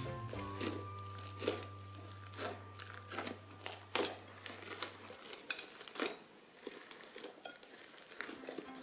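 Crunchy slime being squeezed, crackling and popping irregularly.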